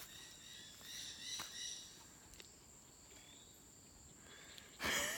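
Insects buzzing at a steady high pitch, with a few chirping calls about a second in and a short burst of noise near the end.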